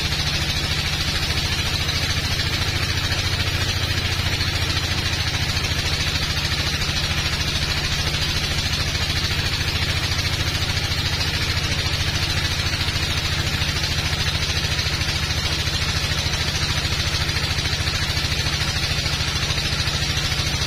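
Sawmill log bandsaw running steadily as it cuts through a teak log, a loud continuous mechanical drone that holds unchanged throughout.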